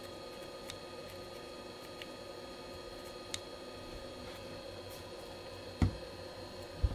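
Steady low hum of workbench equipment, with a few faint ticks and two dull knocks about a second apart near the end.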